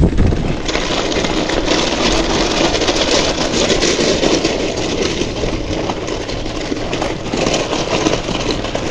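Steady rushing noise of a bicycle ride along a trail, filling in and getting louder about a second in.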